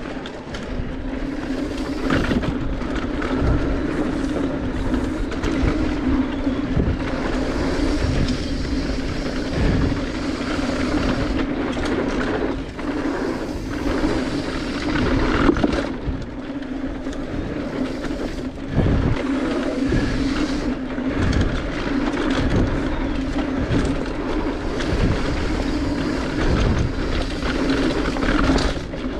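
Mountain bike descending a rough downhill trail: tyres rumbling over dirt and the bike rattling, with frequent knocks as it hits bumps.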